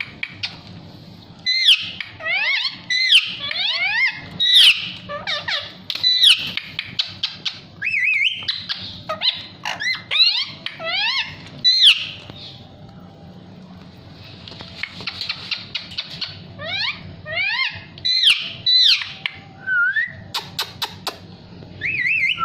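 Ringneck parakeet calling in quick runs of sharp chirps and squawks, many of them sweeping down in pitch, with a quieter pause in the middle and a few sharp clicks near the end.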